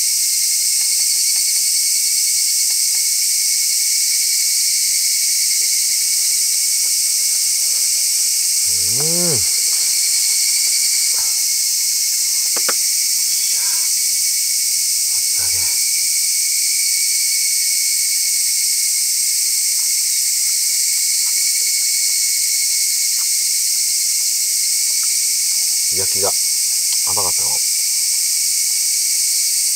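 A steady, dense chorus of insects chirring in the grass and trees, unchanging throughout. It is broken about 9 and 26 seconds in by a brief low murmur from a person's voice.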